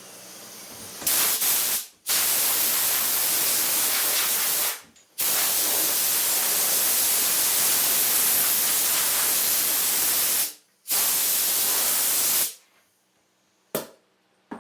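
Compressed air hissing from a blow gun in four bursts, the longest about five seconds, blowing the sanding dust off a freshly sanded clearcoat. It stops about two seconds before the end, leaving a couple of faint clicks.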